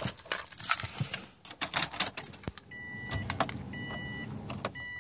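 Keys jangling and clicking as they are handled at the ignition of a Subaru Baja. About two and a half seconds in, the dashboard warning chime starts beeping evenly, about once a second.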